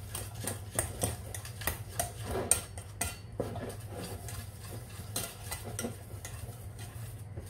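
Wire whisk scraping and clicking irregularly against the inside of a stainless steel pot, mixing flour and butter for a béchamel.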